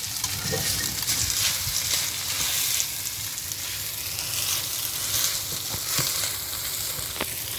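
Nasi goreng (fried rice) sizzling in oil in a frying pan while it is stirred, a steady hiss with occasional light scrapes and clicks of the utensil against the pan.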